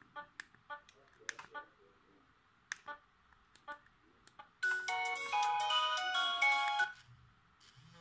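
An LG U8330 flip phone beeps briefly as its keypad buttons are pressed to step through the menus. About halfway through, a short ringtone melody with several notes at once plays loudly for just over two seconds and cuts off.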